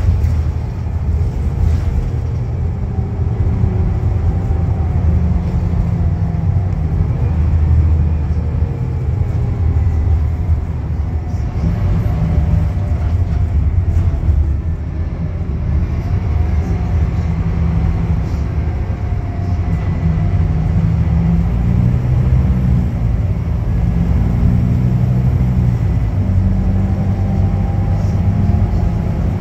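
Scania K310UB bus's rear-mounted five-cylinder diesel engine running under way, heard from the back seats inside the cabin: a steady low drone with a fainter whine that rises and falls in pitch.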